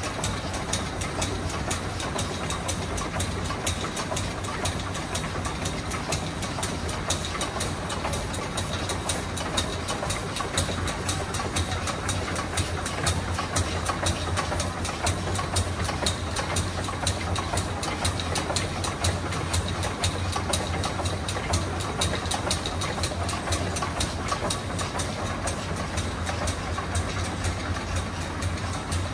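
Stationary steam engines running on exhibit: a steady, rapid, even mechanical beat of clicks and knocks over a constant low hum.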